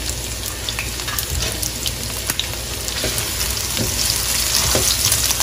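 Sliced onions sizzling and crackling in hot oil in a frying pan as they start to sauté. A spatula stirs them around the pan in the second half, where the sizzling grows a little louder.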